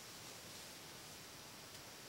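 Near silence: a faint steady hiss of quiet woods, with one faint click near the end.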